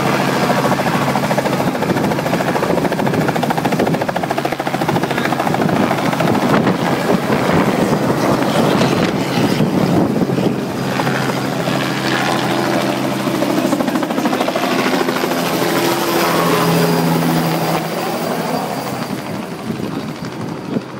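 Robinson R44 helicopter lifting off and flying away, its rotor and piston engine running loud and steady, then fading over the last few seconds as it departs.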